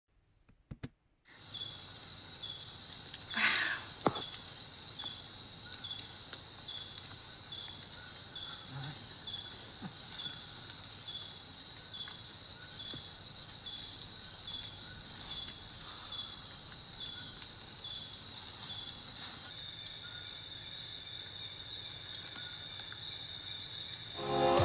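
Dense night chorus of crickets and other insects, a steady high shrill. It starts suddenly a little over a second in, and about 19 seconds in its highest part stops abruptly and the chorus drops in level.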